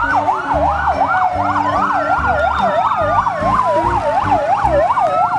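Fire engine sirens: an electronic yelp sweeping up and down about three times a second, with a second siren's slower wail rising and falling across it. There are low rumbling sounds underneath.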